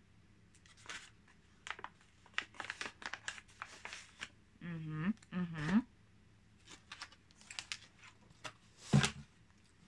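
Crinkling of a snack pouch being handled, in short spells of crackle, with two brief hummed vocal sounds about five seconds in.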